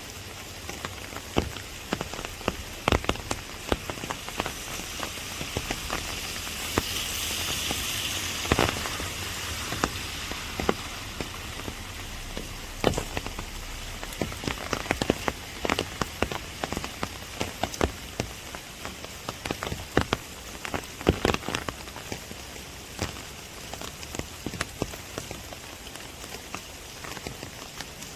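Rain falling in a bamboo forest: a steady hiss of rain on the leaves, with heavy drops tapping sharply and irregularly on an umbrella overhead. The hiss swells for a couple of seconds about a quarter of the way in.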